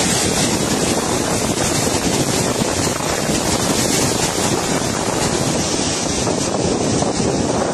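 Muddy flash floodwater rushing down a river channel in a loud, steady torrent, with wind buffeting the microphone.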